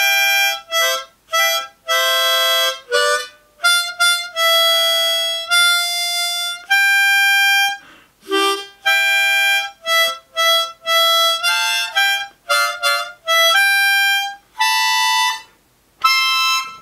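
Harmonica played solo: a melody of mostly short, separate notes with a few longer held ones, breaking off shortly before the end. A drinking song still being practised, a little harsh on the ears.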